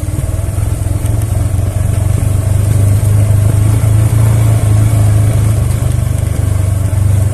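Engine of a moving road vehicle running steadily, a low pulsing hum that grows a little louder in the first few seconds.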